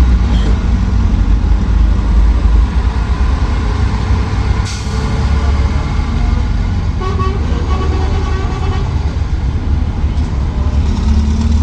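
Danfo minibus engine running in city traffic, a steady low rumble, with a sharp click near the middle. Short vehicle-horn toots sound several times about seven to nine seconds in.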